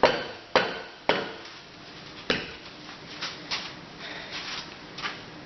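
Metal engine parts being handled and set down: a few sharp knocks and clanks, the loudest at the start and in the first couple of seconds, then lighter taps.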